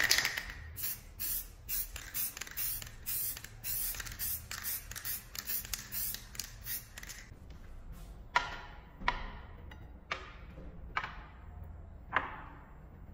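Aerosol spray-paint can sprayed in a rapid series of short hissing bursts, marking a knife outline onto a steel leaf spring over a paper template. Then five separate sharp metallic clinks as steel nuts used as template weights are set down on the wooden workbench.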